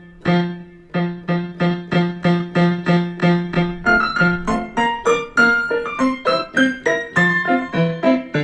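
Background piano music: short, evenly spaced notes at about three a second over a repeated low note, with higher notes filling in from about halfway.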